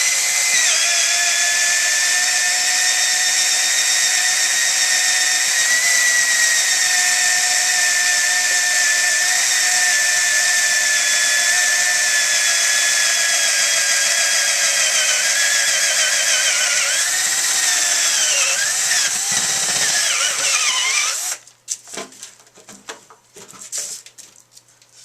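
Cordless drill boring an entrance hole through juniper wood with a Forstner bit. It runs with a steady high whine for about twenty seconds. The pitch wavers and dips over the last few seconds, then the drill stops suddenly, followed by a few faint knocks.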